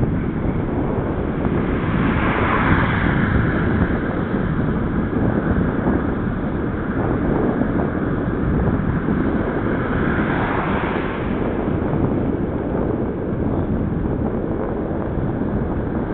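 Wind rushing steadily over a bicycle-mounted camera's microphone while riding along a road. Two swells of brighter hiss come through it, about two seconds in and again about ten seconds in.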